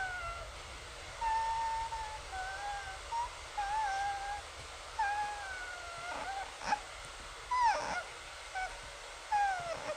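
A pet making a string of short, high, wavering whining mews, kitten-like 'mmmm' calls, some sliding down in pitch at the end. A couple of sharp clicks come about seven and eight seconds in.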